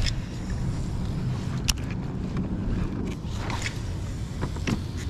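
Steady low rumble of wind on the camera microphone, broken by a few short sharp clicks and knocks from handling the rod and reel while casting.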